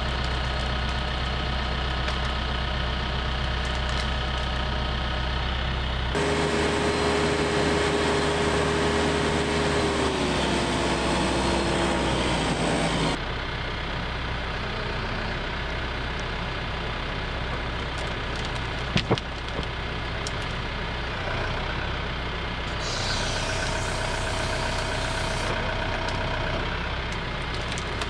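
TYM T654 compact tractor's diesel engine running steadily as its front loader works a grapple rake full of brush. For several seconds from about a quarter of the way in, the engine gets louder under load and a steady whine sags slightly in pitch. A couple of sharp knocks come about two-thirds of the way through.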